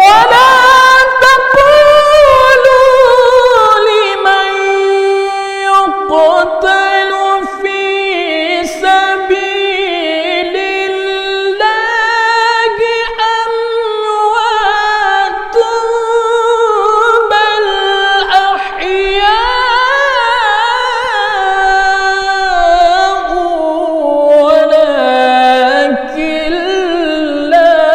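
A male qari reciting the Qur'an in a melodic, sung style into a handheld microphone. It is one high solo voice with long held notes and wavering ornaments. It starts suddenly after a breath and moves to a lower pitch near the end.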